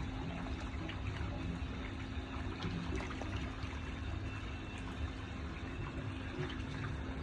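Steady running or trickling water with a constant low hum under it and scattered small ticks.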